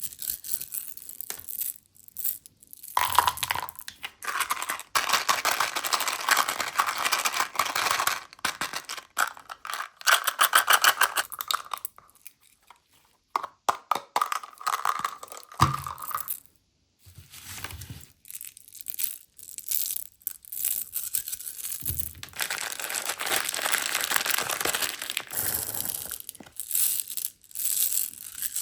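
Plastic candy wrappers crinkling and tearing open, with small hard-shelled candies clattering. It comes in long crackly bouts with short pauses around the middle.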